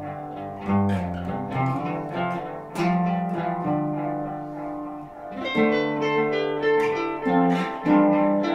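Instrumental music led by plucked guitar, with held notes changing every half second to a second.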